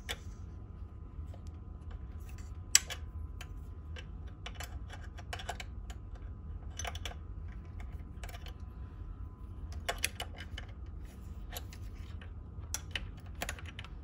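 Irregular small clicks and taps of a flat wrench and fingers working a brass push-fit Bowden-tube coupling loose from a 3D printer's extruder, with one louder click about three seconds in. A faint steady hum sits underneath.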